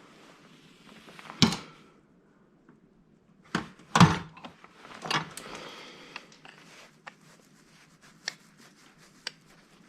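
Scrap parts being handled and set down: a string of knocks and clunks, the loudest about a second and a half in and about four seconds in, with rustling and scraping between them.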